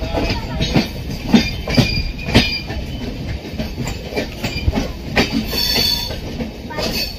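Train running on rails, heard from inside the coach at the open door: wheels clattering in irregular knocks over rail joints and points. A brief high wheel squeal comes about five and a half seconds in.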